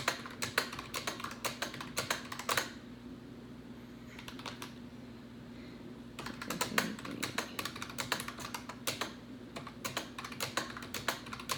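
Keys pressed in quick runs of sharp clicks, a pause of about three and a half seconds between the two runs: figures being keyed in to check a calorie division.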